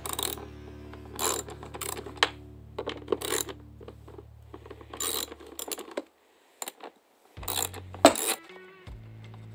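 Ratchet and socket working the 10 mm airbox bolts on a Yamaha Warrior 350 ATV: a string of separate metallic clicks and clinks, the loudest about eight seconds in, over low background music.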